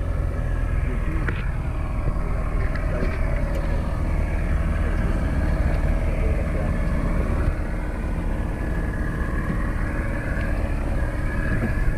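Small outboard motor running at a steady speed, driving a sailing dinghy along in calm water.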